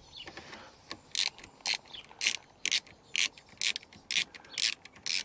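Ratchet wrench tightening the nut on a battery tie-down clamp's hook bolt: short clicking bursts about twice a second, one with each back-swing of the handle.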